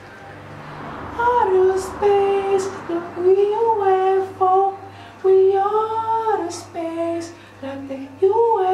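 A high singing voice carrying a melody of held notes that slide up and down, with few clear words and only faint backing.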